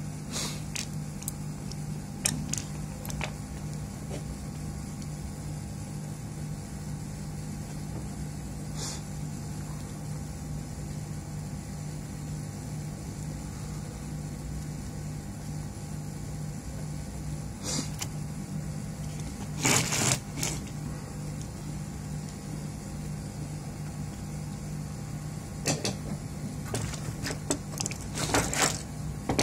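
Small tools, a soldering iron and a power-supply circuit board being handled on a workbench while a replacement fuse is fitted: scattered light clicks and taps, a short rattling clatter about twenty seconds in, and a quick cluster of clicks near the end. A steady low hum runs underneath throughout.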